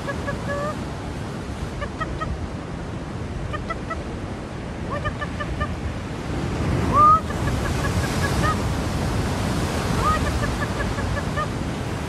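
A gull calling, with a quick run of short notes at first, then scattered short notes and a few rising calls; the loudest call comes about seven seconds in. Under the calls is a steady rush of wind on the microphone and surf.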